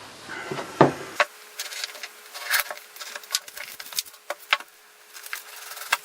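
Cardboard camera box being opened and unpacked by hand: rubbing and scraping of packaging with scattered light clicks and taps.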